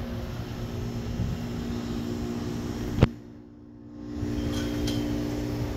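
A steady low hum with a low rumble underneath, and one sharp click about three seconds in.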